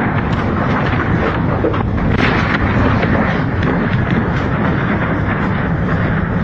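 Storm at sea: heavy wind blasting the microphone and big waves crashing against a ship, loud and continuous with repeated heavier surges.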